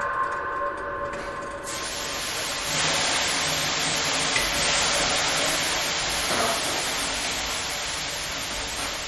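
Haunted-house ambience sound effect: a faint held tone gives way, about two seconds in, to a steady rushing hiss that swells a little and then carries on.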